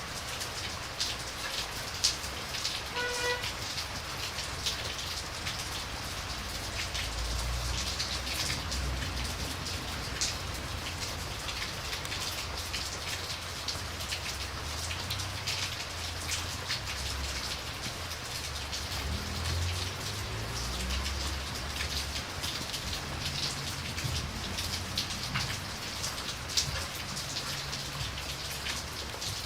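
Steady rain falling, with many sharp drip clicks and a low rumble that swells through the middle. A brief high tone sounds once about three seconds in.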